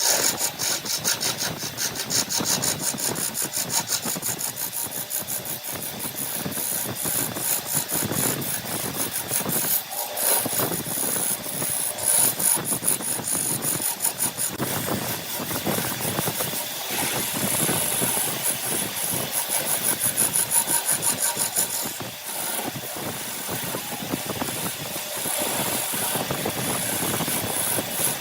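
A power saw cutting through wood: a continuous rasping with a fast flutter. The sound eases briefly about ten seconds in and again around twenty-two seconds in.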